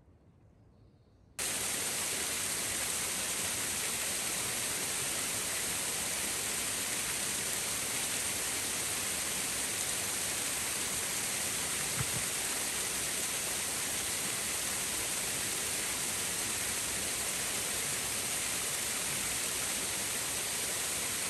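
Steady, even rush of running water, cutting in suddenly about a second and a half in and holding without change.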